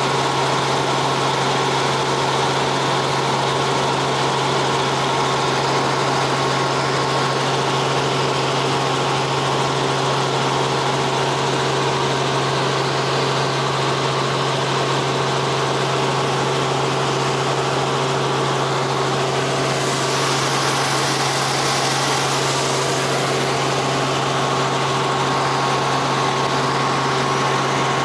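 Helicopter in flight heard from inside the cabin: a steady drone of engine and rotor with a constant hum. The hiss grows briefly brighter about twenty seconds in.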